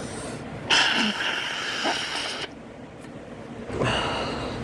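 A man blowing his nose hard into a tissue to clear allergy congestion: one long blow of nearly two seconds, then a second, shorter blow near the end.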